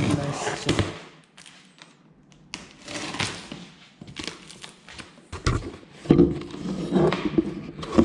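A knife slitting the tape and plastic wrap along a cardboard box's seam, then the box flaps being pulled open: irregular scraping and rustling with a few dull knocks, louder in the second half.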